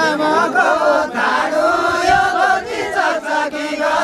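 Group of men and women singing a deuda folk song together in a chanted style, voices rising and falling with long held notes.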